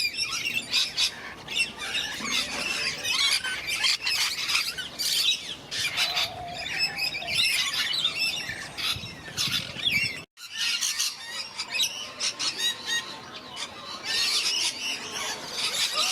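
Many parrots squawking and chattering over one another, a dense, continuous din of harsh calls, which drops out for an instant about ten seconds in.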